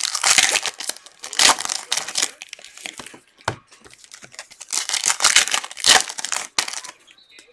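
Foil wrapper of a football trading card pack being torn open and handled, crinkling in irregular bursts with short pauses, with a dull knock about halfway through.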